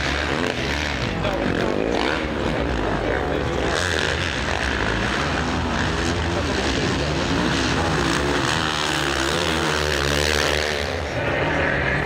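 Off-road rally motorcycle engines running and revving on a dirt track, their pitch rising and falling as the riders work the throttle.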